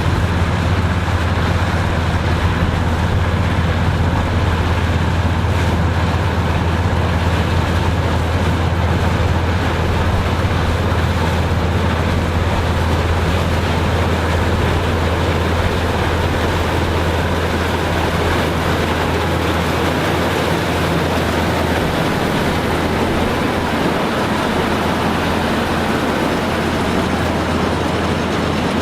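Farm harvesting machinery running steadily: a continuous engine drone with mechanical noise, the low drone easing off about two-thirds of the way through.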